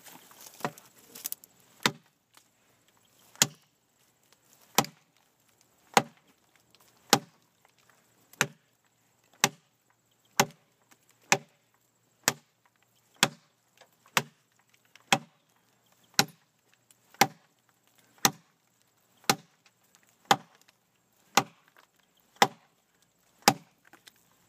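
Large camp knife with a 13-inch ATS-34 steel blade chopping into a piece of very hard, dense locust wood: a few lighter strikes at first, then sharp chops about once a second, some twenty in a row.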